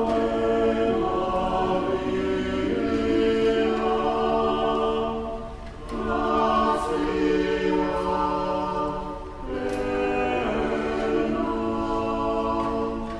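A choir singing unaccompanied in long, held phrases, with two short breaths between phrases, about six and nine and a half seconds in.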